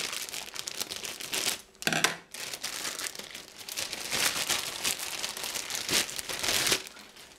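Thin clear plastic packaging bag crinkling and crackling as it is cut open and pulled off a plastic toy figure by hand, dying away shortly before the end. A brief pitched sound about two seconds in.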